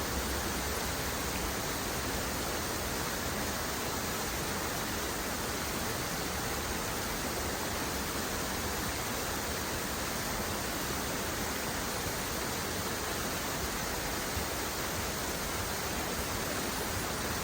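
A waterfall rushing steadily, a constant even roar of falling water.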